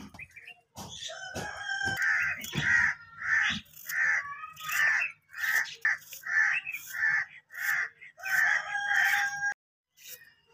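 Chicken calling: a long run of repeated loud clucking calls, about two a second, that cuts off abruptly near the end.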